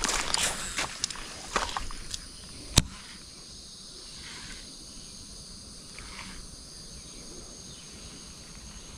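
Insects droning steadily in riverside woods. In the first three seconds there are a few clicks and knocks from handling a baitcasting rod and reel, and the loudest is a single sharp click about three seconds in.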